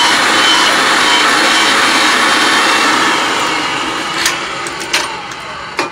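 Ridgid 300 pipe threading machine running, spinning the pipe while its reamer cuts the burr from the inside of the freshly cut end. The machine stops and winds down about halfway through, and a few sharp metal knocks follow near the end.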